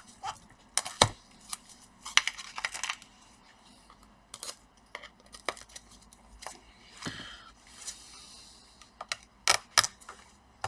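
Irregular clicks, taps and short scraping sounds of laptop parts and tools being handled: plastic and metal pieces of a laptop's top case being worked on, with no steady machine sound.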